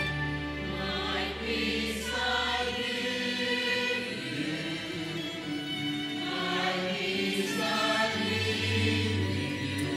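Church choir singing with instrumental accompaniment, voices holding long notes over sustained bass notes.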